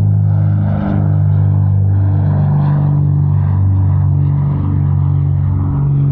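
Steady, loud, low drone of an aircraft engine, its pitches shifting slightly now and then.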